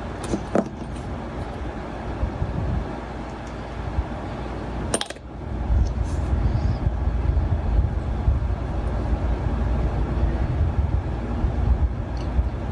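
Small plastic model-kit parts clicking and tapping as they are handled and fitted together, with a sharp click about five seconds in. A steady low rumble runs underneath and grows louder after that click.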